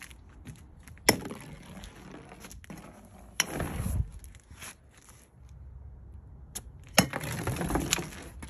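A metal youth baseball bat smashing chunks of ice against wooden deck boards: three sharp strikes about a second, three and a half seconds and seven seconds in, with ice fragments skittering and clinking between them.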